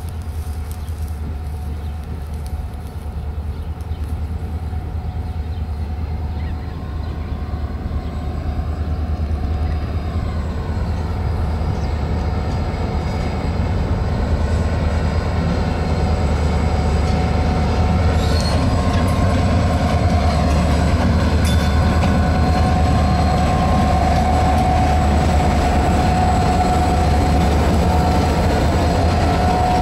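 Pacific National grain train with diesel-electric locomotives G524 and XR552 passing slowly, a steady low engine rumble that grows louder as it approaches. The grain hopper wagons then roll by with a steady high-pitched wheel squeal that grows stronger in the second half.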